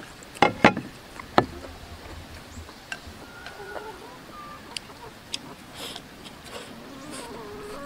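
Chopsticks clicking against a plate and bowl as food is scraped into the bowl and eaten. The loudest clicks come in the first second and a half. From about three seconds in, chickens cluck faintly in the background.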